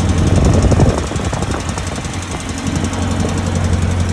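Suzuki Jimny Katana's F10A 1.0-litre four-cylinder engine idling with a rapid, even "tik tik tik" ticking over its hum. It is the very noisy ticking the owner complains of on starting the engine.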